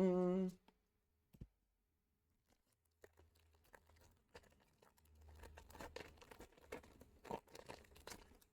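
Foil wrapper of a Pokémon booster pack being torn open and crinkled: a busy run of rustles and sharp rips over the last five seconds or so. A short hummed voice sound comes first, at the very start.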